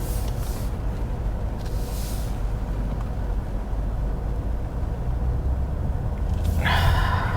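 Car idling, heard from inside the cabin as a steady low rumble, with a short hiss near the end.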